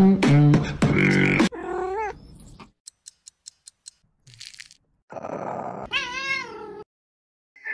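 A cat meowing: a short meow about two seconds in, then a longer meow that rises and falls in pitch near the end. Before the meows comes a loud pitched sound that steps between notes for the first second and a half, and between the two meows there is a quick run of about seven clicks.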